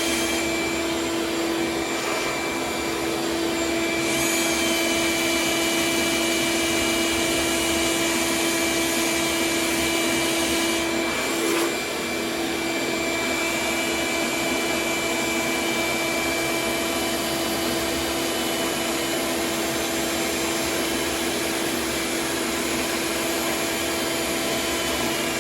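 Vacuum running steadily, a continuous rushing noise with a steady hum, dipping briefly about halfway through.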